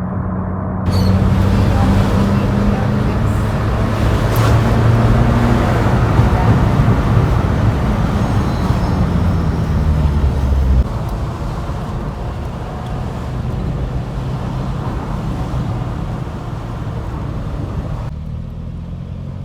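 Motor vehicle driving along a paved road: steady engine and road noise, a little quieter about halfway through.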